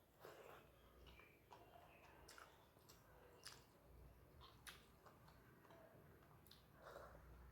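Faint chewing of food, with soft wet clicks of the mouth scattered through it, about one every second.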